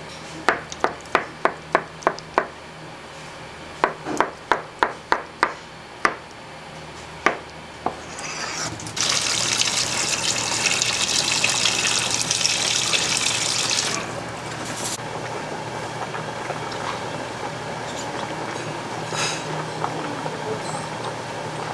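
Two quick runs of sharp knocks, about four a second, then water running hard from a kitchen tap for about five seconds before easing to a softer flow.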